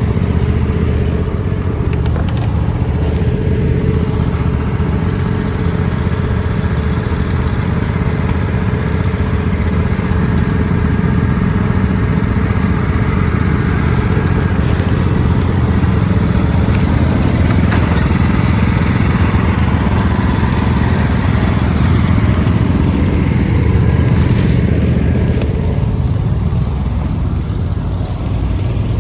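Riding lawn mower engine running steadily under way, with a few faint knocks and clatters.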